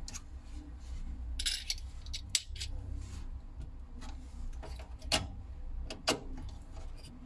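Small metal tools clicking and clinking against the parts of an opened hard drive as it is taken apart. There are a few sharper clicks, a short scraping rustle about a second and a half in, and a steady low hum underneath.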